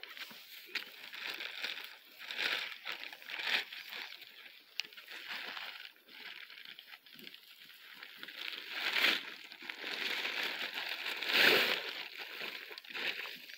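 Cattle munching dry feed from tyre feeders: irregular crunching and rustling, with a louder crinkling burst near the end.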